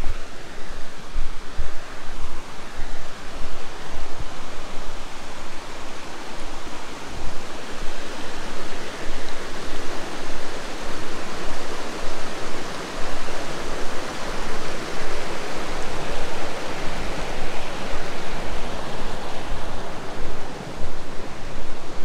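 Rushing mountain river, a steady roar of water that swells louder around the middle, with scattered low thumps of wind on the microphone.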